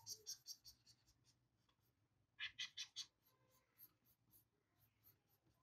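A stylus scratching on a drawing tablet in quick hatching strokes, about five a second. The strokes fade about a second in, return as a short burst near the middle, and then continue as faint scattered strokes.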